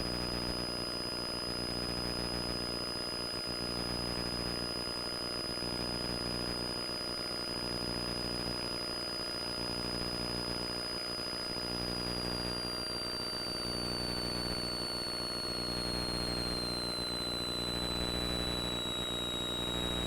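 Cessna 172's piston engine and propeller running steadily in flight, heard from inside the cockpit as an even drone. A high thin whine runs over it and drops in pitch from a little past halfway to near the end.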